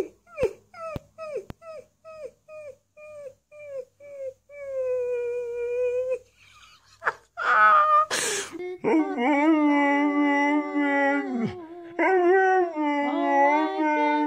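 A fluffy puppy gives a run of short, falling yips, about two a second, ending in one longer held howl. After a brief burst of noise, a larger dog howls in long, wavering howls.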